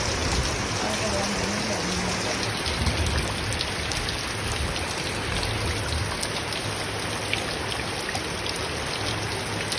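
Steady rain falling, an even hiss with scattered drops ticking on nearby surfaces.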